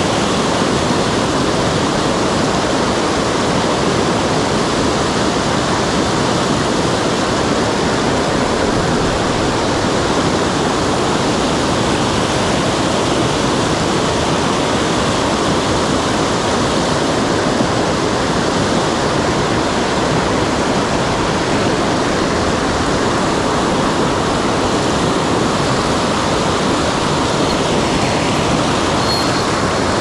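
Whitewater cascade of a rocky mountain headwater stream rushing over boulders: a loud, steady roar of falling water with no let-up.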